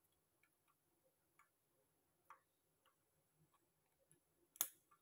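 Mustard seeds starting to pop in hot oil: faint, scattered ticks, with one sharper pop near the end.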